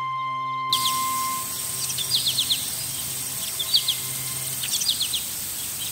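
Background music cuts out within the first second, leaving open-air garden ambience with a small songbird singing: short rapid phrases of four or five high notes, repeated about every second.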